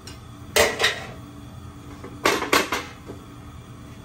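Metal kitchenware clattering: two short bursts of knocks and clanks, the first about half a second in and the second about two and a quarter seconds in.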